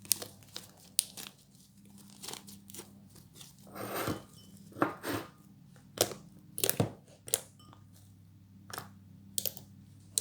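Freshly made fluffy slime of glue and shaving foam, still sticky, being squished and pulled apart by hand: irregular sharp pops and crackles, with a denser crackling stretch about four seconds in.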